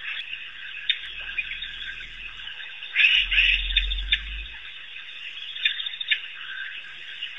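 African wild dogs twittering and squealing: a dense run of short high-pitched chirping calls from the pack, loudest about three seconds in.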